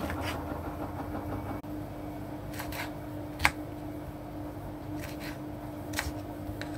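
Kitchen knife chopping pineapple on a bamboo cutting board: about eight scattered knocks of the blade against the board, the sharpest about three and a half seconds in. Under them runs the steady hum of a washing machine.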